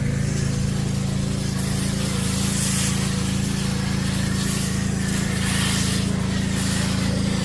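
Gas-engine pressure washer (Dewalt 3600 psi) running steadily, with the hiss of its high-pressure spray rising and falling as the spray comes and goes.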